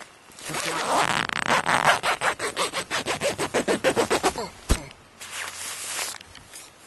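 Saddlebag zipper and fabric being worked: a run of quick rasping strokes that speed up, ending in a sharp click, then a short rustle.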